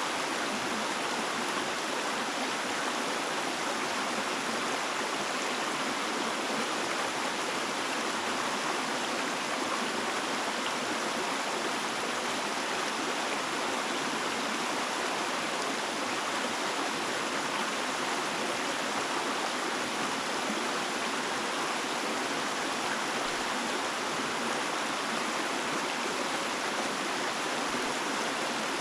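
Stream of water running steadily, an even unbroken splashing hiss with no change in level.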